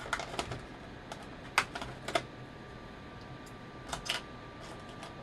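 Small hard tools clicking and clattering as Torx bits and a driver are picked out, about six scattered clicks, several in quick pairs. Under them runs a steady hum from a background fan.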